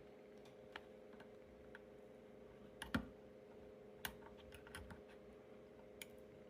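Near silence with a faint steady hum and a handful of small, faint clicks as an M.2 SSD is seated in its motherboard slot and pressed under its latch. The sharpest click comes about three seconds in.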